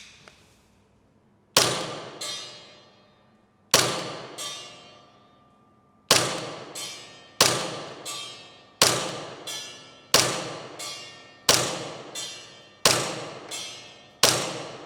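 Gas blowback airsoft Glock pistol (Agency Arms x Lonewolf EXA, green gas) fired nine single shots, slowly at first and then about one every 1.3 seconds. Each shot's sharp report is followed about half a second later by a ringing ping as the BB strikes a steel target.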